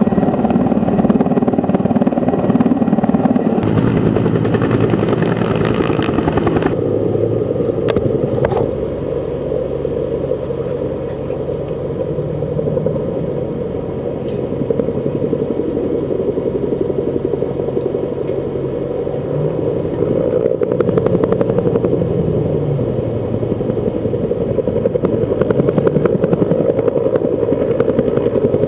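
Firefighting helicopter's rotor beating rapidly over its engine noise, easing off around the middle and growing louder again near the end.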